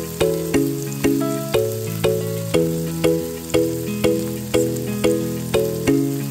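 Background music of plucked notes, about two a second over a bass line, with onions and tomatoes sizzling in oil in a frying pan underneath.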